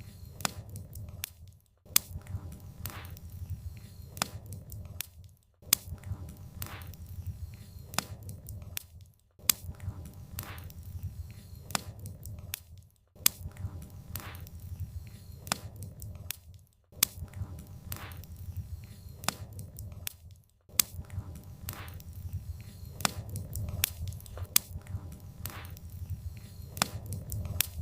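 Wood fire crackling and popping over a low rumble of flames. The sound drops out briefly every three to four seconds, like a short repeated loop.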